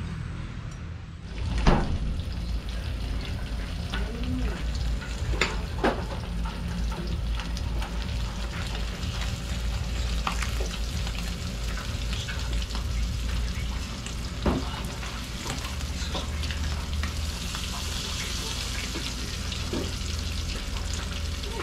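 Barracuda steaks frying in hot oil in a frying pan, a steady sizzle that starts about a second in. A few sharp clicks of metal tongs against the pan come as the pieces are turned and lifted out.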